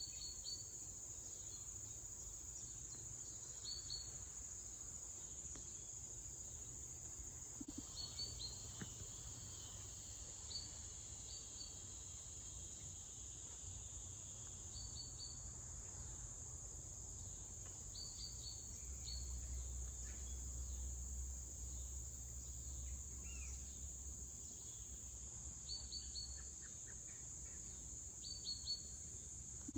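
Steady high-pitched insect chorus, of crickets, with short bird chirps coming in pairs and small clusters every few seconds. A low rumble underneath grows stronger for several seconds past the middle.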